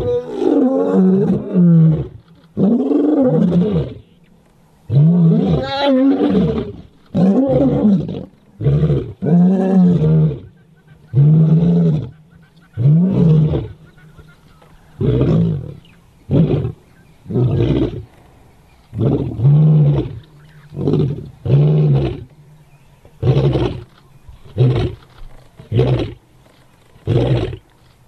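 Lion roaring in a full bout: several long, moaning roars whose pitch rises and falls, then from about halfway a run of short, clipped grunts about one a second.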